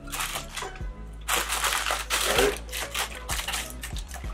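Plastic pouch of Model Magic modelling clay crinkling as it is handled and torn open, in irregular rustling bursts that get louder about a second in.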